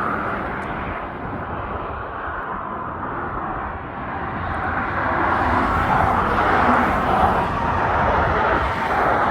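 Steady rumble and hiss of highway traffic, swelling a few seconds in as vehicles pass close by.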